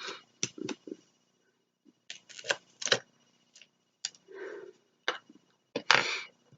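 Irregular light clicks and taps with a few short rustles of paper, from handling cardstock die cuts and peeling glue dots off their roll.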